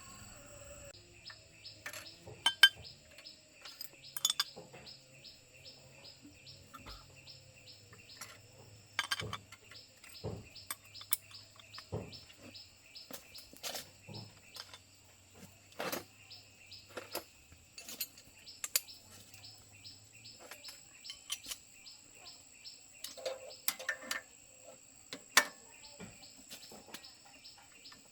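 Insects chirping in a steady rhythm, about three pulses a second over a high steady buzz, with irregular sharp clicks and knocks from hand work throughout, the loudest near the start and about three-quarters of the way in.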